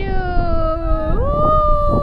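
A long drawn-out excited high-pitched cry held for about two seconds while going down a slide, jumping up in pitch about a second in, with a second shorter voice cry overlapping it, over a low rumble.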